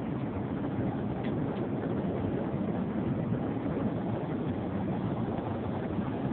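Airliner cabin noise in cruise flight: a steady, deep, unchanging rush.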